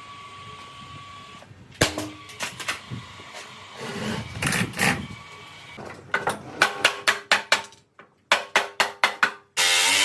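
Sharp knocks, then a quick even run of about five strikes a second in the second half, ending with a short loud burst of noise.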